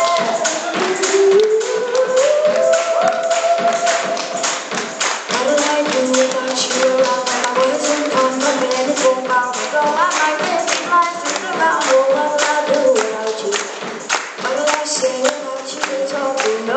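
Live band performing a song: a woman singing lead over strummed acoustic guitar, a small strummed string instrument and light drums with a steady tapping beat.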